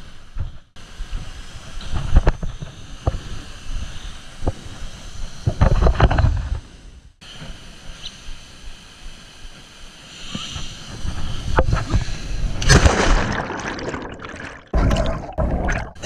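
Stream water rushing over rocks, with gusts of wind buffeting the action-camera microphone. The sound breaks off abruptly a few times where short clips are cut together.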